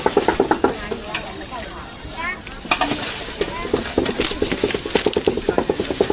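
Cleaver rapidly chopping pork on a wooden block, about seven or eight quick knocks a second. The chopping pauses about a second in and starts again near the three-second mark.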